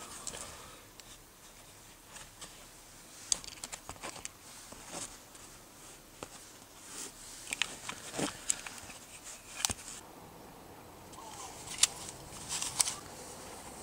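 Handling noise: scattered clicks, taps and rustles as the dash cam's box, its cables and a plastic car trim panel are handled, with the sharpest clicks near the end.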